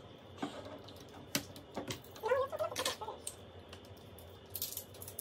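Sped-up, fast-forwarded sound of the plastic cap on a marble soda bottle being worked open: a string of sharp plastic clicks and taps, with a short high, chirpy vocal strain from the person about two seconds in.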